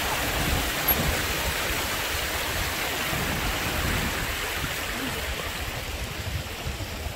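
Steady rushing of stream water, slowly growing quieter over the few seconds.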